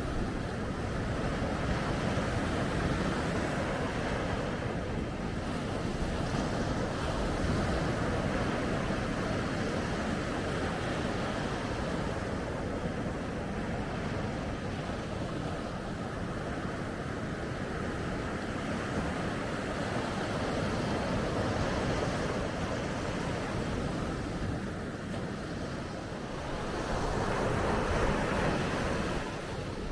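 Ocean waves washing onto a beach in a steady wash of surf that swells and eases, with one louder wave building near the end. Some wind rumble on the microphone underneath.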